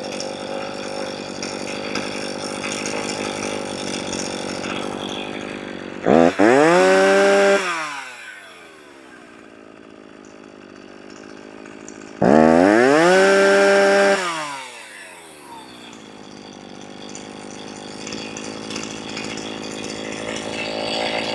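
Poulan 330Pro two-stroke chainsaw engine running at idle, revved to full throttle twice about six seconds apart, each rev rising sharply, held a second or two, then falling back to idle. The saw is being tested during carburetor adjustment.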